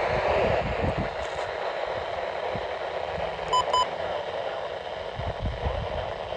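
Weather radio receiver hissing with static, with two short, sharp beeps in quick succession about halfway through.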